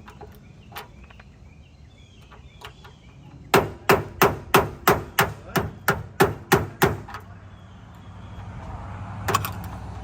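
About a dozen hammer blows on metal, roughly three a second, each with a short ring, struck at a toolbox lock to force it open. A steady low hum swells near the end.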